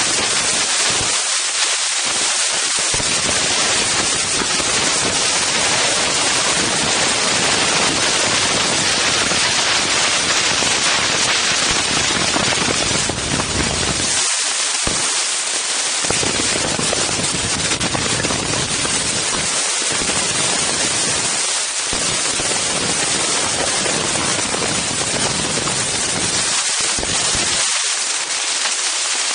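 Strong wind buffeting the Insta360 One X camera's microphones: a loud, rough, continuous rushing noise whose low rumble drops out briefly a few times.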